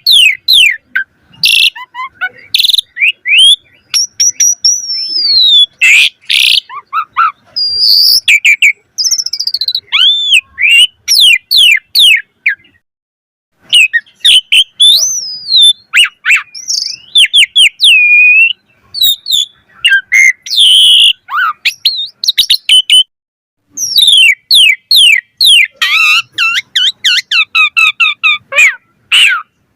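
Asian pied starling (jalak suren) in full varied song: loud whistles, quick rising and falling notes, sharp clicks and rapid chatter, including mimicked calls of other birds, broken by a couple of short pauses.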